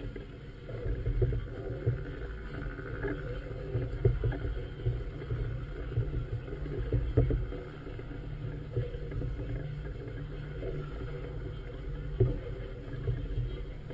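Wind and water around a moored floating vessel, picked up by a mounted GoPro camera: a steady low rumble with irregular knocks and slaps.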